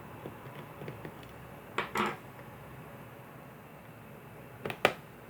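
Plastic back cover of a Dell Latitude E5470 laptop being pried up with a flat-head screwdriver: a short scrape about two seconds in, then a couple of sharp clicks near the end as the cover lifts.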